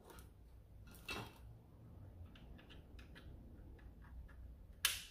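Faint clicks and light taps of small plastic parts being handled and fitted into a foam blaster's plastic shell, with a louder click about a second in and another near the end.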